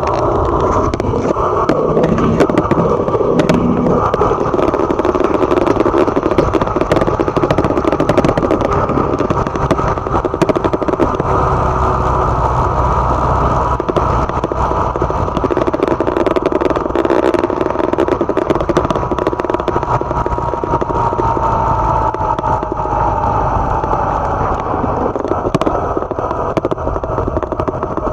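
Motorcycle engine running steadily while riding along a road at speed, with wind rushing over the microphone. The engine note drops slowly about two-thirds of the way through as the bike eases off.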